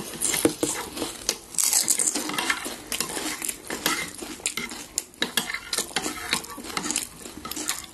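Spoons and dishes clinking and tapping in many short, irregular clicks, the sound of panipuri being served and eaten.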